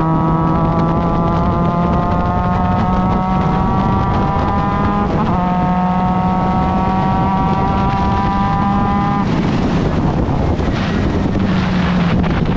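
Formula Mazda race car's Mazda rotary engine pulling hard, its pitch climbing steadily, with one upshift about five seconds in and then a second long pull. About three-quarters of the way through, the throttle comes off and the high engine note drops away to a lower drone.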